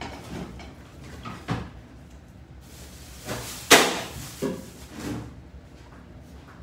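Several separate knocks and thumps of things being handled, the loudest a sharp bang a little under four seconds in.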